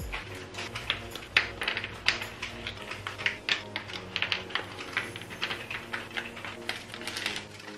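Small soy-wax melts being popped out of a silicone mould and dropping onto a wooden board: many quick, irregular light clicks, several a second.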